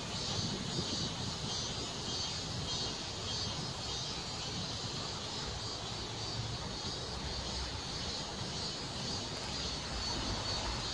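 Steady outdoor ambience: a low rumble under a constant high-pitched insect drone, with no distinct events.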